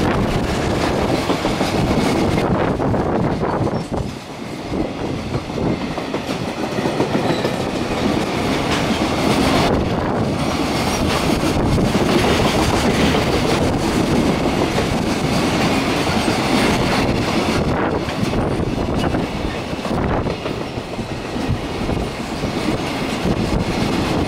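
Freight train's container flatcars rolling past, a steady loud rumble with the wheels clicking over rail joints.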